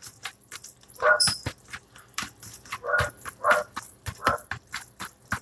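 A dog barking, several short barks spaced through a few seconds, with sharp clicks in between.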